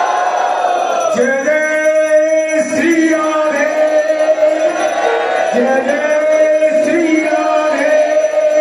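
Music: a man singing a slow melody in long held notes that slide from pitch to pitch, over steady accompaniment.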